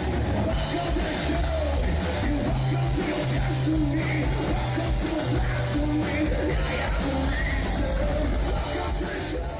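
Rock band playing loudly: electric guitar, bass and drums, with a voice singing over them.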